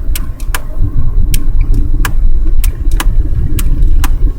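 Car running on the road, heard from inside the cabin as a steady low rumble of engine and road noise, with a run of sharp clicks about two a second.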